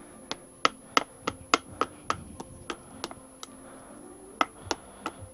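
Light, sharp taps on a motorcycle fork leg as a seal is worked down onto the fork slider, about three a second, pausing briefly after about three seconds and then resuming.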